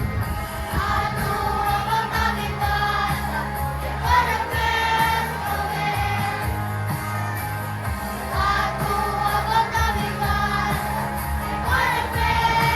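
Primary-school children's choir singing a melody over an accompaniment with a low bass line and a steady beat.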